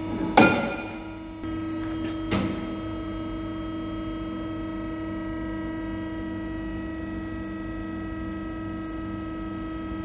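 A steel tube clanks against the steel vise of a horizontal bandsaw about half a second in, with a smaller knock about two seconds in. From then on the bandsaw runs with a steady hum.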